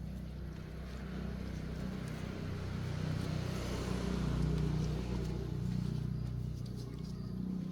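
A motor vehicle's engine running close by, its noise swelling to a peak in the middle and then easing off, over a steady low hum.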